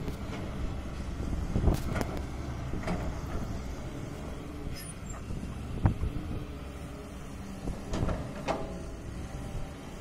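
Caterpillar 320D2 hydraulic excavator working, its diesel engine running with a steady low drone. Short sharp knocks and clanks come now and then, a few in the first three seconds, one about six seconds in, and two near eight seconds.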